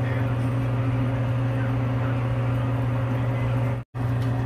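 Kitchen exhaust fan running with a steady low hum and hiss. The sound drops out for a split second near the end.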